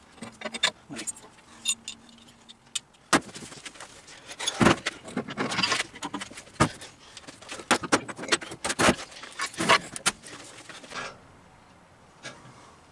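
Metal clunks, scrapes and rattles as the table of a Startrite bandsaw is lifted off the machine. The knocks and clanks come thickest between about three and eleven seconds in, then die away.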